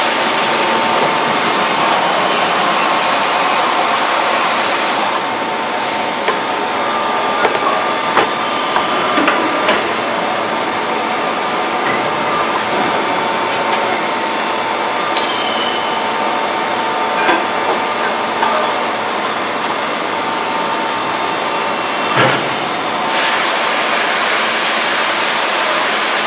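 Cold chamber die casting machine running: a steady hiss with a faint steady whine, broken by scattered sharp metallic clunks as the safety door and die move. In the last few seconds a louder hiss rises as mist billows off the opened die.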